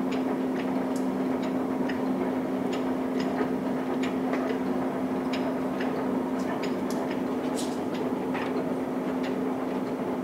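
Mazak Oil Country hollow spindle engine lathe running under power with its feed drive engaged. Its gearbox gives a steady hum at two low pitches, with scattered light clicks and ticks from the gears and feed mechanism, about two a second at irregular spacing.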